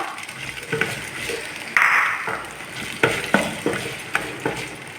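Chopped onions sizzling in hot oil in a kadai while a spatula stirs them, scraping and clicking against the pan about eight times, with one longer scrape about two seconds in. The sizzle fades toward the end.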